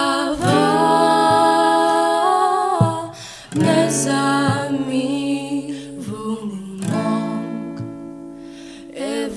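Live acoustic song: acoustic guitar strumming chords and a keyboard under two female voices singing together, with a long held, wavering sung note in the first few seconds.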